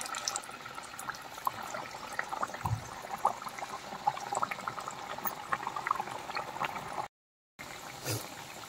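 Hot oil sizzling and crackling in a kadhai as bajra (pearl millet) mathri discs deep-fry, a steady bubbling hiss dotted with many small pops. The sound drops out for about half a second near the end.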